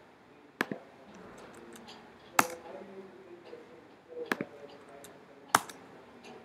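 Sharp clicks from a computer keyboard and mouse: four loud ones spaced one to two seconds apart, with fainter taps between them.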